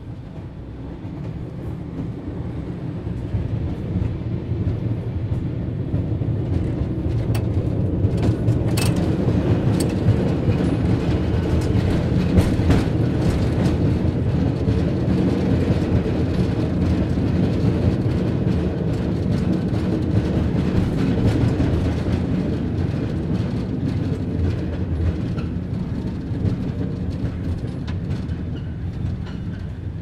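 Cable car running: a steady low rumble that swells over the first dozen seconds and fades toward the end, with a few sharp clicks around eight to ten seconds in.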